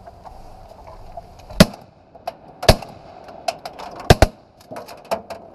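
Shotgun blasts, four in all: one about a second and a half in, another a second later, then two almost together near the end, with lighter clicks and knocks between them.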